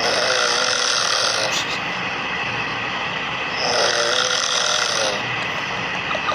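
Recording of a man snoring, played back: two long snores a few seconds apart. Each snore sounds doubled, as if two people were snoring at once.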